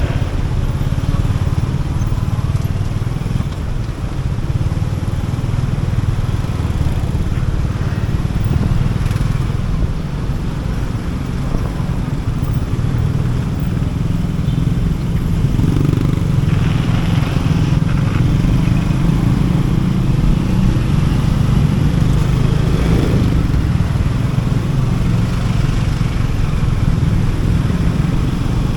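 Motorcycle running at riding speed on the road, a steady low rumble, with a couple of brief louder swells partway through.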